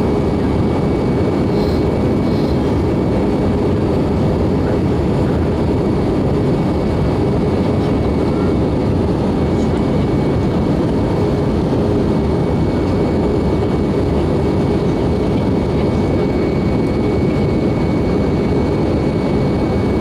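Airbus A320 in flight, heard inside the cabin at a window seat over the engine: a steady, even jet-engine and airflow rumble with a faint high whine held at one pitch.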